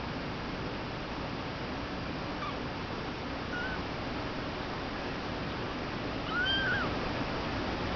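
A two-week-old kitten mewing: two faint short mews a few seconds in, then a louder mew near the end that rises and falls in pitch, over a steady background hiss.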